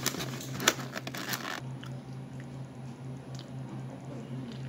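Styrofoam takeout clamshell being pressed shut: squeaky, scratchy foam rubbing with a sharp click of the lid latching, over about the first second and a half. After that it goes quieter, leaving a steady low hum and a few faint clicks.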